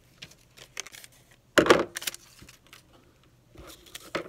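Sheets and scraps of paper being handled and slid about on a desk, with scattered small clicks and knocks. The loudest rustle comes about a second and a half in, and another comes just before the end.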